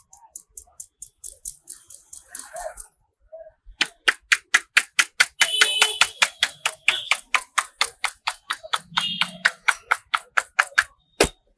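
Barber's hands striking the head in a percussive head massage: rapid, even taps at about five a second, fainter for the first few seconds, then louder and sharper after a short pause. A single sharp click comes near the end.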